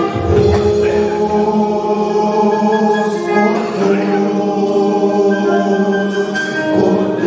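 Christian worship music: a choir singing long held notes over instrumental accompaniment.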